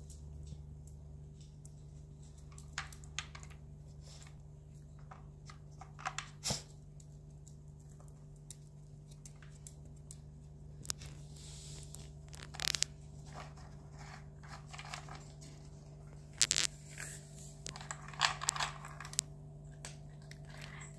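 Small dog working a plastic puzzle treat feeder with its nose and paws: scattered clicks and clatters as the plastic covers are nudged and slid, over a faint steady hum.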